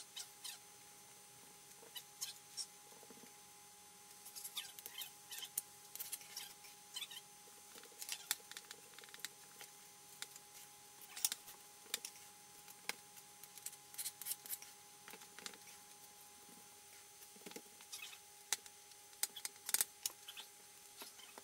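Hands working cookie dough on paper-covered counter: scattered light taps, rustles and crinkles, over a faint steady hum.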